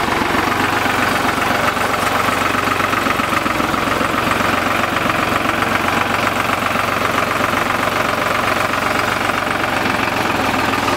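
Case IH JX80 tractor's diesel engine running steadily at low revs as the tractor creeps through shallow water and mud close by.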